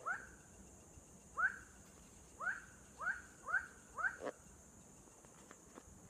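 An unidentified night animal calling: six short, upward-sweeping notes, the later ones coming faster and closer together. A sharp click follows just after the last call.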